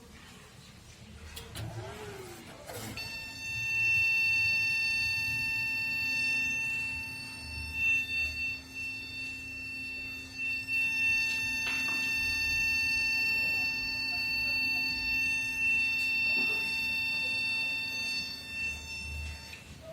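Desktop computer's beeper sounding one continuous high-pitched error beep, starting about three seconds in and holding steady almost to the end, over a steady low hum.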